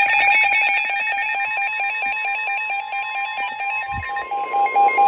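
Several NOAA Weather Radio receivers sounding their electronic warning alarms at once: a rapid pulsing beep with several overlapping tones, joined about a second and a half in by a steady warning tone near 1 kHz, the broadcast warning alarm tone that comes before a severe weather message.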